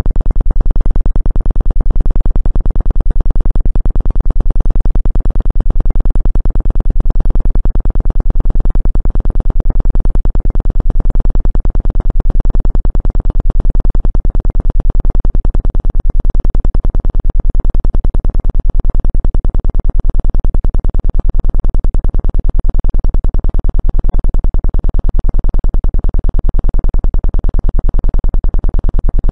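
Loud, low electronic tone played as a Rife frequency, buzzing with a rapid, even pulse that runs unchanged.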